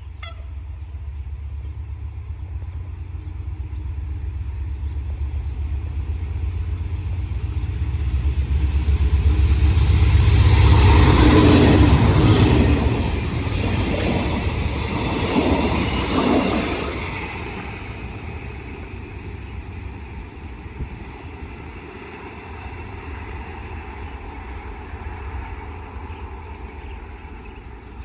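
SRT GEA-class diesel-electric locomotive No. 4542 passing with its train. The engine's low rumble builds to its loudest about eleven seconds in, with a clatter of wheels over the rails as the locomotive and coaches go by, then fades to a steady rumble.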